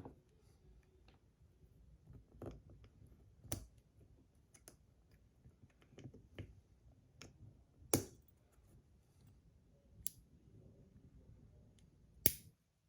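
Faint scattered clicks and taps of a magnetic fidget slider's small parts being handled and fitted, with about five sharper clicks standing out, the loudest about eight seconds in and just before the end.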